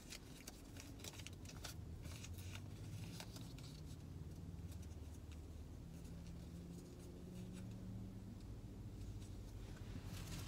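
A faint, steady low hum inside a car's cabin, with occasional small clicks and rustles of handling.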